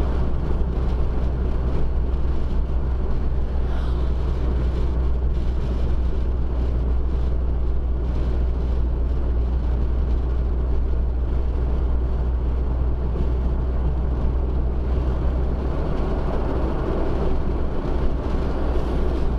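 Steady road and engine noise of a moving car, heard from inside the cabin, dominated by a heavy low rumble.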